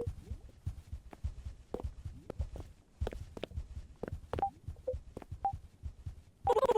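Irregular clicks, knocks and low thuds of things being handled, with a few brief short tones in the middle. Just before the end a loud, fluttering buzz with a steady pitch starts abruptly.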